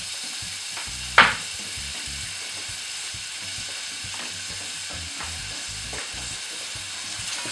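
Diced onions sizzling in hot oil in a stainless steel pot: a steady frying hiss, with one sharp click about a second in.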